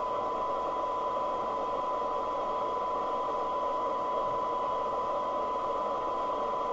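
FM CB receiver's speaker playing the signal generator's steady 1 kHz test tone over a band of hiss, as it would during receiver alignment with a SINAD meter while an IF coil core is being trimmed.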